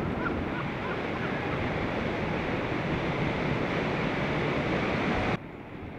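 Wind rushing over the microphone, a steady noise that cuts off abruptly about five seconds in.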